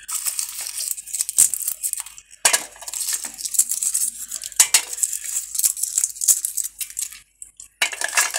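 Dry-roasted jackfruit seeds being shelled by hand: the brittle husks crackle and snap, with small clicks and clinks of seeds and shell pieces against a plastic plate and an aluminium bowl. There is a short pause near the end.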